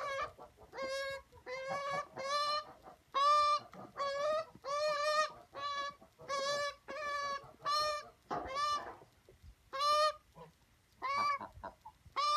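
Magpie giving a long run of short squawking calls, about one or two a second, each on a steady pitch.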